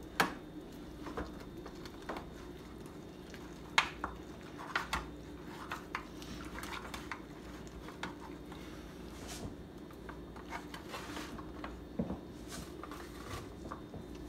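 Hands packing chopped onion, apple and bacon stuffing into a raw goose in a metal roasting pan: soft squishing with scattered small clicks, and two sharper knocks against the pans, one just after the start and one a few seconds in. A steady low hum runs underneath.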